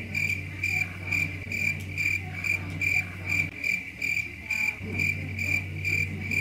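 Cricket chirping in an even, unchanging rhythm of about two chirps a second over a low steady hum, the stock 'crickets' sound used for an awkward silence.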